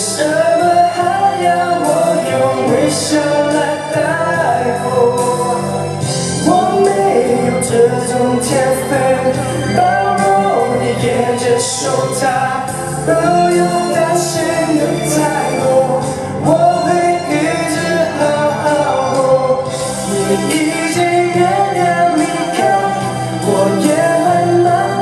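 A man singing a ballad live into a handheld microphone over backing music.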